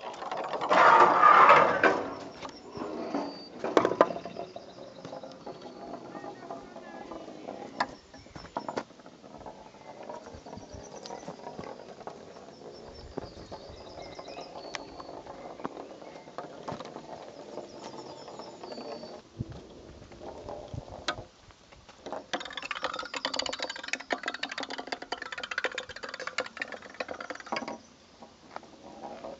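A small ball rolling along a long wooden rail of an outdoor marble run, a rolling rattle with scattered clicks and knocks as it runs along the planks. There is a loud burst about a second in, and a louder, noisier stretch near the end.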